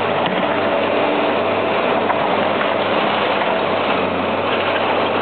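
Liebherr 944B long-reach demolition excavator working steadily, its diesel engine running under load with a continuous clatter of brickwork being broken and rubble falling.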